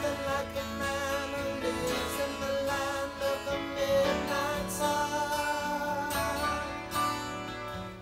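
Background song: acoustic guitar with a singing voice.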